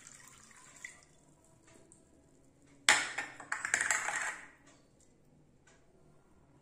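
Soaked fennel water poured from a glass through a stainless-steel mesh strainer into a glass bowl: a faint trickle at first, then about three seconds in a sudden, louder splashing pour with a clink of dishware that lasts about a second and a half and fades as the seeds settle in the strainer.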